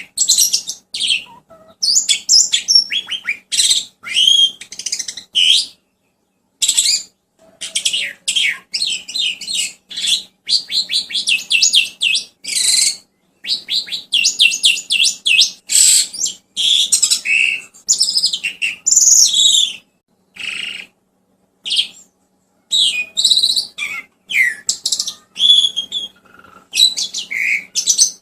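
Songbird song played as a masteran (tutor) recording: rapid high-pitched chirps, trills and fast-repeated notes in bursts of a second or two, with brief silent gaps between them, over a faint steady hum.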